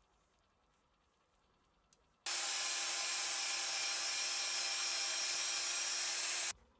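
A power tool with a motor running at a steady pitch, switching on suddenly a couple of seconds in and cutting off about four seconds later.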